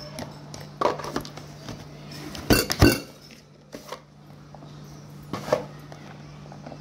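Red plastic push-down vegetable chopper being worked: scattered knocks and clacks of plastic as a slice is set on the blade grid and pressed through, the two loudest knocks coming close together near the middle. A steady low hum runs underneath.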